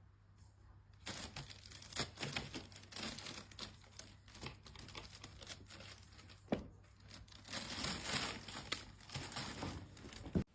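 Crinkling and rustling, dense with quick clicks and taps, starting about a second in, with one sharper snap partway through.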